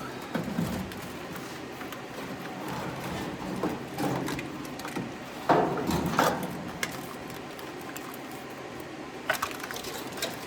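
Automotive wiring harness being shoved and pulled through a hole in the car body: irregular scraping and rustling with scattered knocks, the loudest about five and a half to six and a half seconds in.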